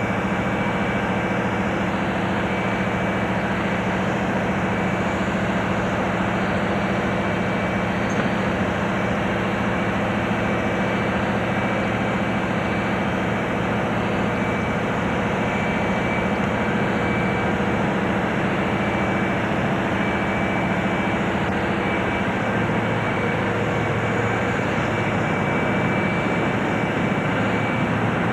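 Boeing 737-400 auxiliary power unit, the small gas turbine in the tail, running steadily on a ground test run: a constant high whine over a low, even drone.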